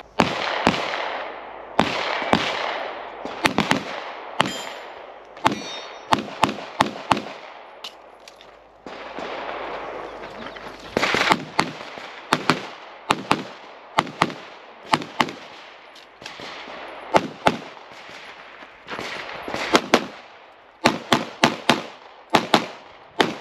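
Handgun shots from competitors on nearby stages of a practical shooting range, sharp reports at irregular intervals, often in quick pairs or strings, each followed by a brief echo off the range.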